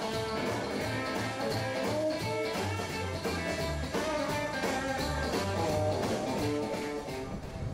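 Live blues band playing: electric guitar over upright bass and drums, with a steady beat and a moving bass line.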